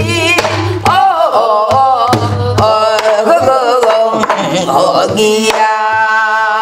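A woman singing a Korean folk-song refrain on vocables ("eori hi-i hi-i eo-eo-eo eoho-eong eogiya"), beating the rhythm on a buk barrel drum with a wooden stick. Near the end she holds one long note.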